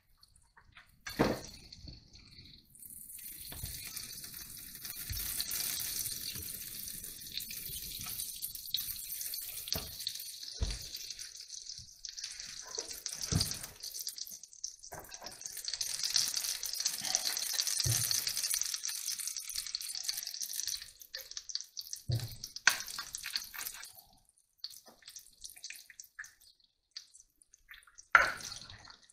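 Butter sizzling and crackling in a hot non-stick frying pan, a dense hiss that dies down to scattered crackles about two-thirds of the way through. A few sharp knocks come in between, the loudest near the end as eggs are cracked against a knife over the pan.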